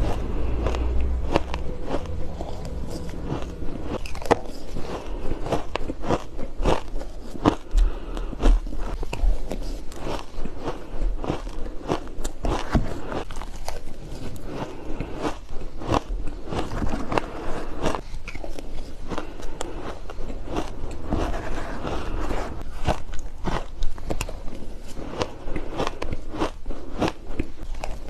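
Ice being bitten and chewed close to the microphone: a steady run of sharp crunches and cracks, several a second.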